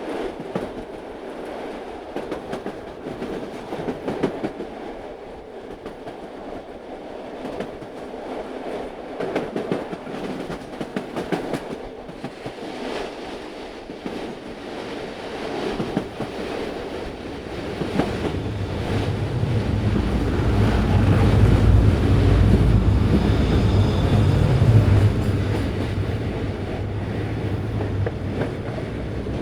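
Train running on rails, its wheels clicking and clacking over the rail joints. About eighteen seconds in a deep rumble builds up and becomes the loudest part, then eases a little near the end.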